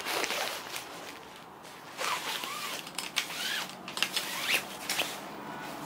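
Fishing rod being drawn out of its black cloth sleeve: a run of rustling, scraping strokes of fabric rubbing along the rod, with a few short squeaks in the middle.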